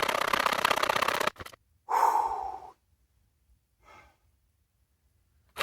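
A pocket chainsaw (chainsaw chain pulled by hand straps) rasping through a small log for about a second, then a click, a short breathy sound, and the sawing stops.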